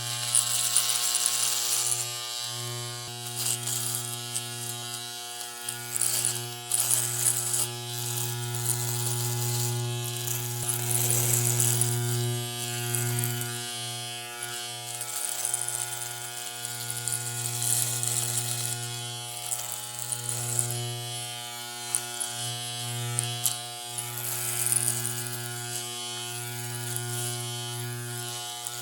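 Electric shaver running with a steady buzz and a high hiss over it that swells and fades every few seconds.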